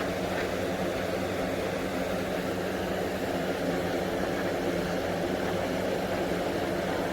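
Hurricane 20-inch box fan running steadily: an even rush of air over a low motor hum.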